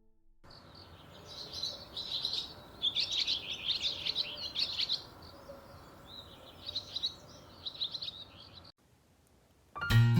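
Small birds chirping in irregular bursts of quick, high chirps, cut off abruptly near the end.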